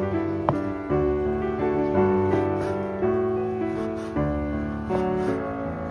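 Background piano music, with a new note or chord struck about every second and fading away.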